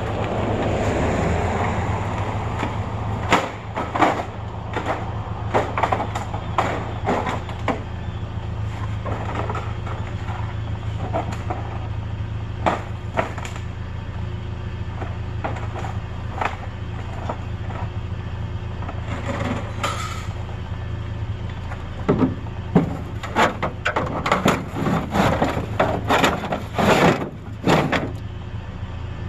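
A vehicle engine runs with a steady low hum, under scattered sharp knocks and clatter of hard objects that come thickest in the last seven seconds or so.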